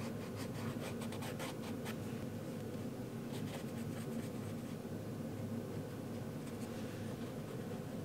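Paintbrush and fingertip scratching and rubbing wet watercolor paint onto cold-press watercolor paper, with a quick run of short strokes in the first couple of seconds and scattered strokes after, over a steady low hum.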